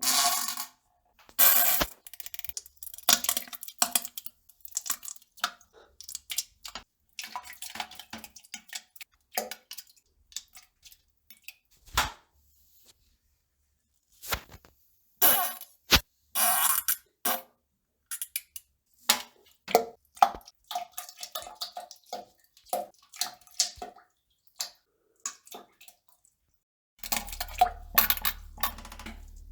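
A string of short fart noises and wet plopping sounds, irregular and separated by brief silences. A steady low hum comes in near the end.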